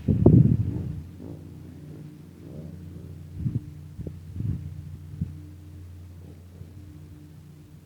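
A steady low engine hum from an idling vehicle, with low thumps from wind buffeting the microphone: a strong one in the first second and several shorter ones midway.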